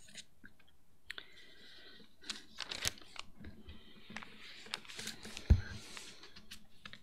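Paper and Bible pages rustling and crinkling as they are handled close to the microphone, with a single thump about five and a half seconds in, the loudest sound.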